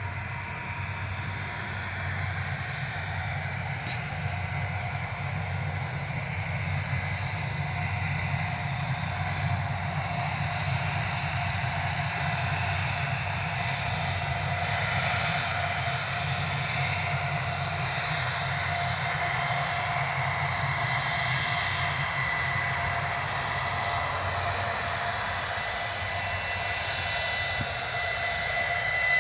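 Aircraft engines running: a steady broad rumble with several high steady whining tones, slowly growing louder.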